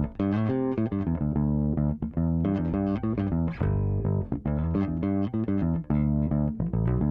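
Six-string Dingwall ABZ electric bass played fingerstyle through a Fairfield Circuitry Accountant compressor set to its lowest ratio and highest pad. A quick run of plucked notes comes out at a fairly even level, with subtle compression and a slight pumping.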